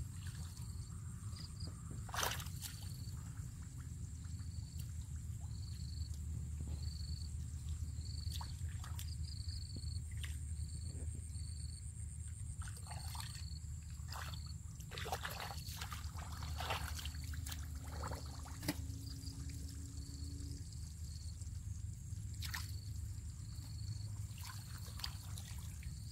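Bare feet wading through shallow muddy water, squelching and sloshing as they sink and pull free, with a few louder splashes. Short high chirps repeat about once a second in the background.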